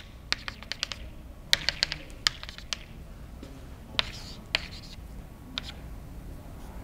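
Chalk tapping and scratching on a blackboard as symbols are written. Sharp clicks come in quick clusters over the first few seconds, then single, spaced-out ticks.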